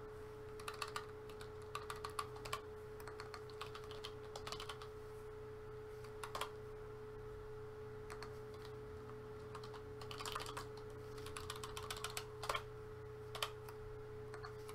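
Typing on a computer keyboard in short bursts of keystrokes with pauses between, the densest run about ten seconds in, over a faint steady hum.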